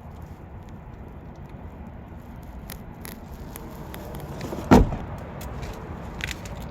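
A single loud thump about two-thirds of the way in, over a steady low rumble and scattered light clicks.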